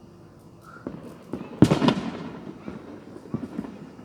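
A firework bang about a second and a half in, ringing out with an echo that fades over most of a second. A few smaller pops come before and after it.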